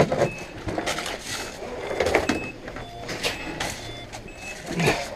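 Short electronic beeps from the airsoft bomb prop, repeating at an even pace while it is set up, over rustling and knocks of players moving with their gear.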